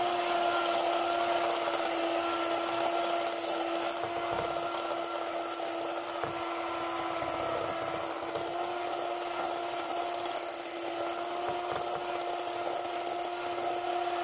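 Handheld electric mixer running at a steady pitch, its twin beaters whipping an egg and sugar mixture in a ceramic bowl until it turns white and thick.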